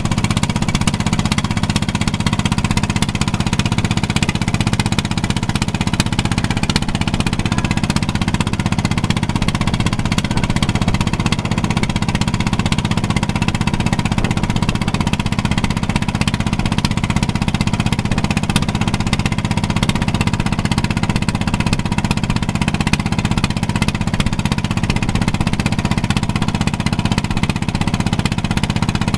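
A small boat's engine running steadily at constant speed, with no change in pitch or level.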